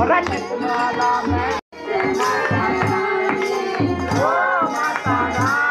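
Group of women and children singing a Hindi kirtan bhajan with rhythmic hand-clapping, dholak drum beats and jingling percussion. The sound drops out for an instant about one and a half seconds in, then the singing and clapping carry on.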